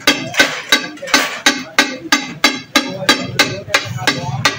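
Flat steel spatula striking a large iron tawa in a steady rhythm, about three ringing metal clangs a second, as boneless chicken is chopped and turned on the hot plate.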